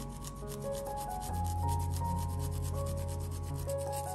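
A garlic clove rubbed back and forth on a small metal hand grater, quick even rasping strokes several times a second, with background music playing.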